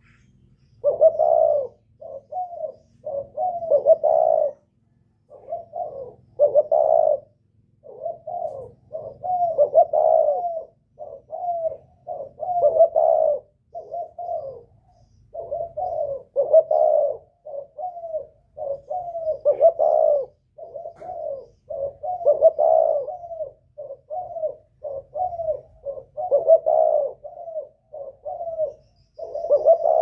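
Spotted dove cooing, phrase after phrase of a few coos each with short pauses between.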